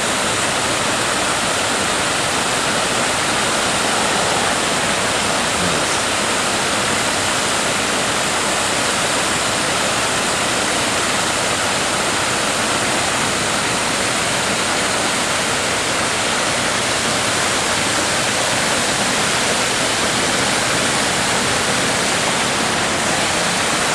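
Steady, loud rush of water pouring over the millpond's stone spillway.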